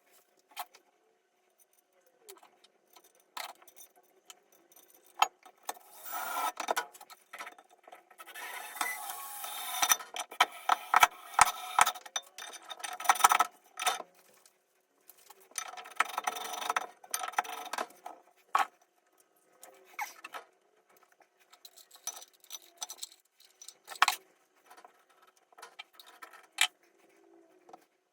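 A box of spare plumbing fittings being rummaged through: small metal and plastic parts rattling and clinking in several bursts, with scattered single clicks and knocks between.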